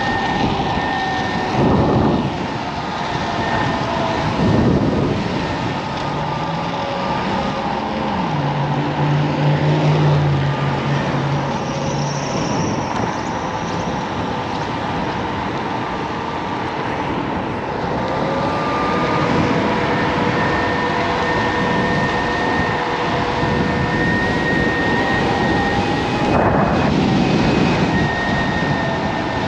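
Kaabo Wolf King GT dual-motor electric scooter riding at speed: a thin, high motor whine that drifts up and down in pitch with speed, over a constant rush of wind and tyre noise. A deeper hum joins for a few seconds about a third of the way in.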